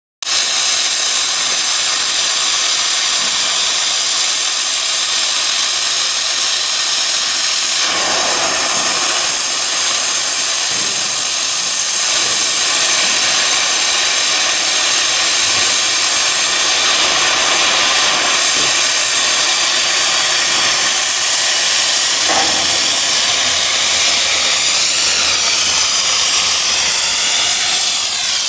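A steady, loud hiss, with brief louder moments about eight seconds in and again about twenty-two seconds in.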